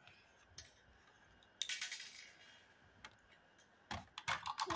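Soft clicks and clatter of plastic toys and small pieces against a glass tabletop, with a brief rustle about a second and a half in and a quick run of clicks near the end.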